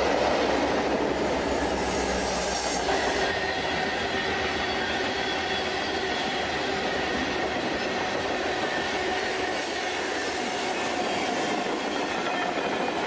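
Freight train passing: diesel locomotives running, then a string of boxcars rolling by with steel wheels on the rails. A faint thin squeal from the wheels runs under the rolling noise.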